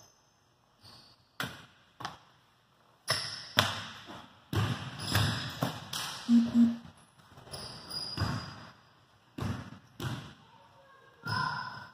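A series of sharp, irregular thuds and knocks echoing around a gymnasium: a katana cutting rolled tatami-mat targets, and the severed pieces dropping onto the wooden floor.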